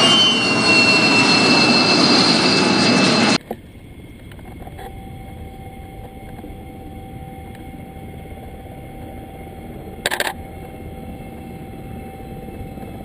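F-16 fighter jet engine rolling past on the runway after landing: a loud rush with whines that slide slowly downward in pitch, cut off abruptly about three seconds in. After that, a much quieter steady hum with a short burst of clicks about ten seconds in.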